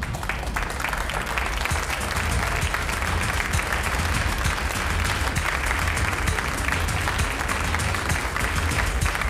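Studio audience applauding steadily, swelling up as it starts.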